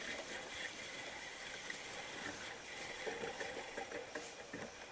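Water lapping and trickling against the hull of a drifting inflatable PVC boat, with faint small splashes and ticks.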